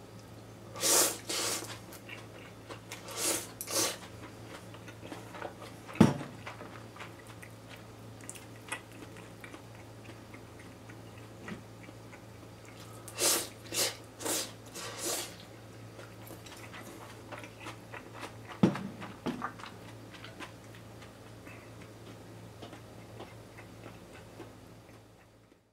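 Ramen noodles being slurped in short airy bursts: two pairs near the start, then four in quick succession about halfway through. Two sharp knocks come between them, the loudest about six seconds in, over a low steady hum.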